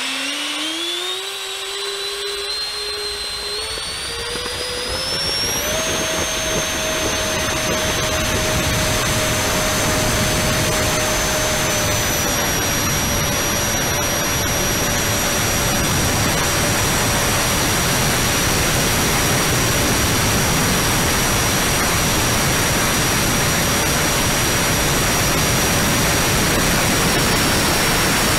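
Twin 70 mm electric ducted fans of an RC A-10 model spooling up to take-off power: a whine that climbs in pitch in steps over the first six seconds, then holds nearly steady over a strong rushing hiss.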